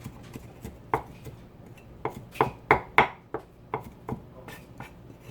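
Knife chopping on a cutting board: a dozen or so irregular sharp strikes, the loudest coming in a quick cluster about two to three seconds in.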